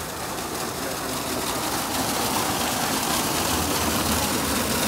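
Water rushing and splashing in a stone street fountain basin, a steady rush that grows louder about two seconds in.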